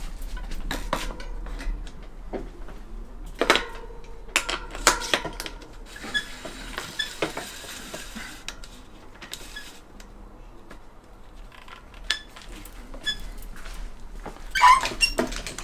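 Metal clinks and knocks, a few with a short ring, as a front wheel is fitted back into a mountain bike's Fox suspension fork.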